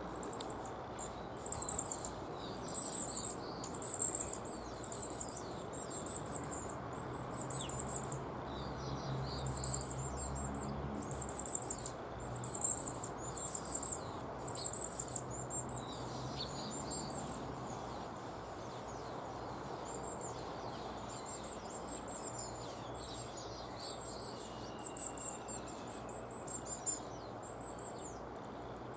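Long-tailed tits calling: many short, very high, thin trilled calls in quick succession, loud and dense through the first half, then fainter and sparser.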